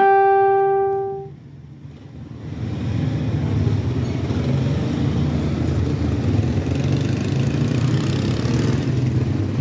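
A single steady horn-like beep, a little over a second long, then street traffic noise with motorcycle engines running.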